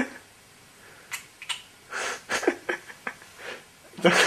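A person's stifled laughter and breaths in short bursts, with a few faint clicks, breaking into louder laughter near the end.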